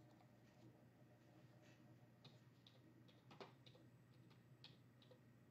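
Near silence: quiet room tone with a few faint, scattered light clicks.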